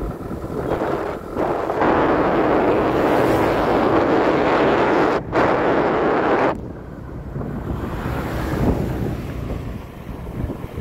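Wind buffeting the microphone of a moving vehicle, with the vehicle's engine and road noise running underneath. The wind blast is loudest from about two seconds in until about six and a half seconds, breaking off for a moment near the middle, then drops back.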